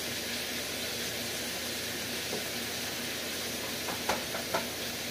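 Vegetables sizzling steadily in oil in an electric skillet, with two faint clicks about four seconds in.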